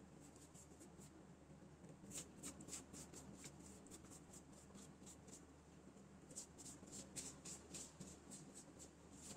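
A silicone pastry brush dabbing onto crinkly phyllo sheets, heard as a quick series of faint soft taps and rustles. It comes in two runs, one starting about two seconds in and another about six seconds in.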